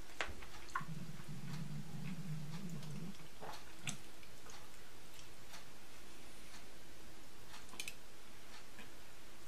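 Fork scraping and tapping in a black plastic frozen-dinner tray while eating, giving scattered irregular clicks, with a low hum from about one to three seconds in.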